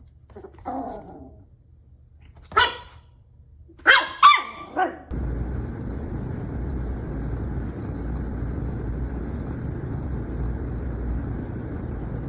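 A dog whines briefly, then barks once and then three times in quick succession. After about five seconds a steady low noise begins abruptly and carries on.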